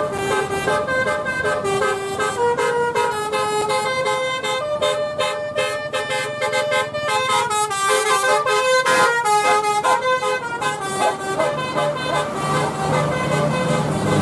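Bus 'telolet' multi-tone horn playing a tune: several horn notes sounding together and stepping from pitch to pitch, with a run of quick short toots in the middle.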